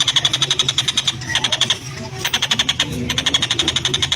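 Oriental dollarbird giving its harsh, rasping chatter: fast runs of rough, evenly spaced notes in bursts of about a second, with short breaks between them.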